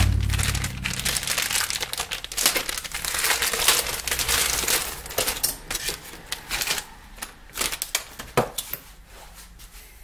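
Clear plastic packaging bag crinkling and crackling as it is torn open and pulled off by hand, dense for most of the time and thinning to a few scattered crackles near the end.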